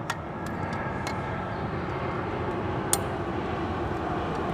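Steady vehicle-like background noise, with a few sharp metallic clicks as a spoke wrench is fitted to and turned on the spoke nipples of a motorcycle's spoked wheel to tighten loose spokes.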